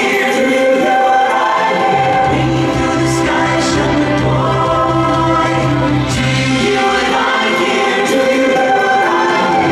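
Music with choir singing: held vocal notes over a steady low accompaniment.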